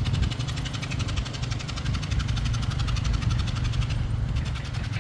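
Motorcycle engine idling close by: a steady low rumble with a fast, even ticking beat.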